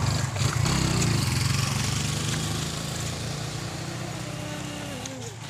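A motorcycle engine running steadily as it rides away along the road, fading gradually.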